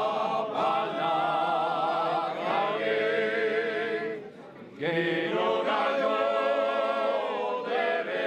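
Unaccompanied choir of several voices singing long held notes, with a brief breath between phrases about halfway through.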